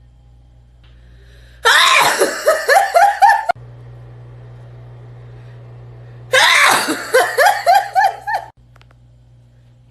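A young woman's voice in two loud outbursts of quick repeated rising pulses, each lasting about two seconds and about three seconds apart. A low steady hum runs between them.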